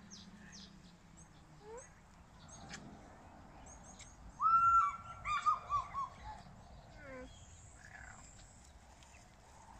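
Wild birds calling: scattered short high chirps, and about halfway through a clear held whistle followed by a quick run of falling notes.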